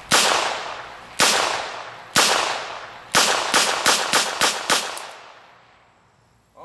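A Smith & Wesson Model 617 .22 LR revolver firing about ten shots in double action, each shot followed by a long fading echo. The first three come about a second apart, then about seven follow in a quick string about four a second, ending about five seconds in.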